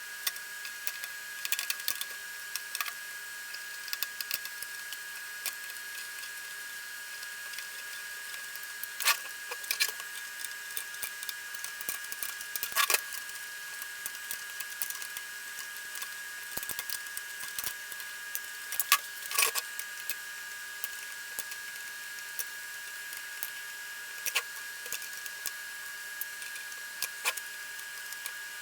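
Scattered small metal clicks and clinks of hand tools on the little bolts of a car radio's mounting plate, over a steady faint high whine.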